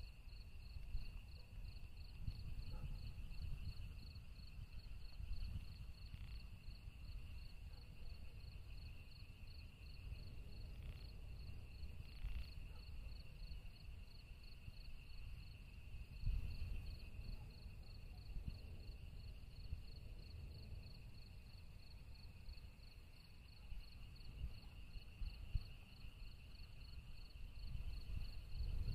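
Crickets chirping steadily: a high pulsing chirp at an even rate over a second, lower continuous trill. Beneath them is an uneven low rumble that swells briefly about sixteen seconds in and again near the end.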